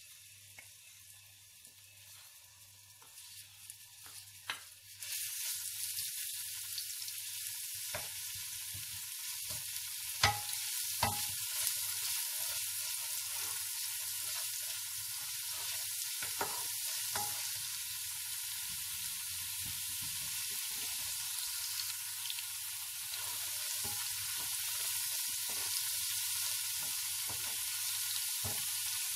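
Garlic frying in hot oil in a pot, a steady sizzle that jumps much louder about five seconds in as it is stirred, with a few sharp knocks of the wooden spoon against the pot.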